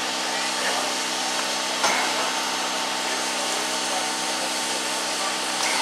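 DB class 01 steam locomotive 01 150 standing under steam: a steady hiss of escaping steam over a steady low hum, with one short knock about two seconds in.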